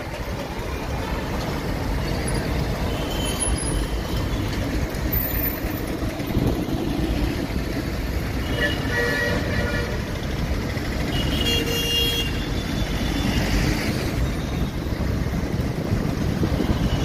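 Road traffic passing close by, motorbikes, an auto-rickshaw and trucks, as a steady rumble. Vehicle horns toot briefly about halfway through and again a few seconds later.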